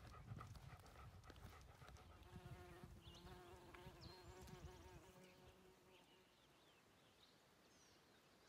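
Near silence: faint outdoor ambience with a faint insect buzz that starts about two seconds in and lasts a few seconds, and a few short, faint bird chirps.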